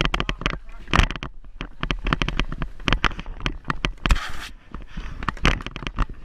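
Roller hockey sticks clacking and knocking against each other and the rink boards in a close scramble, with a short scrape about four seconds in.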